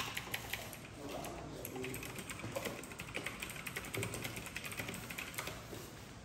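Many quick, irregular light clicks and taps, with faint voices in the background.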